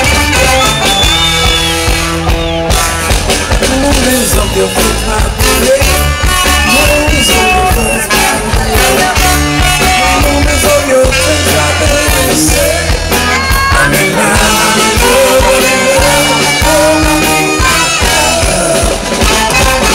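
Live band playing a rock song through a loud PA, with a man singing into a microphone over electric guitar, drums and heavy bass.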